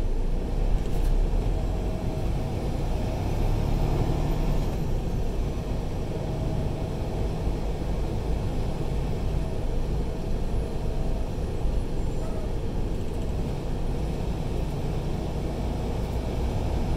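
Semi-truck's diesel engine and road noise heard inside the cab: a steady low rumble while rolling slowly in queued traffic.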